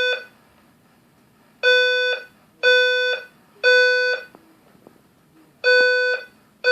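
Building fire alarm horn sounding the evacuation signal in the temporal-three pattern: three half-second blasts of a buzzing tone, then a pause of about a second and a half before the next three. One full group of three sounds in the middle, and the next group starts near the end.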